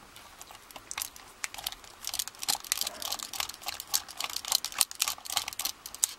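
Rapid irregular small metal clicks and scrapes: a screwdriver working at the stubborn core-retaining screw inside a hardened-steel Abus 34/55 padlock body.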